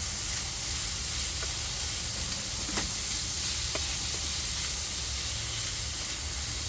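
Minced beef and diced onion sizzling steadily as they brown in a pan on a gas camping stove, with a few faint pops.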